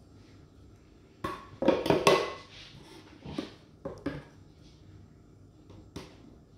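A small steel measuring cup clinking and knocking against a bowl and spoon as gram flour is tipped out of it: a loud cluster of clinks about a second and a half in, then a few lighter single taps.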